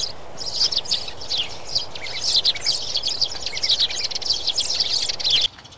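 Many sparrows chirping in quick, overlapping high calls, a steady flock chatter that cuts off suddenly near the end.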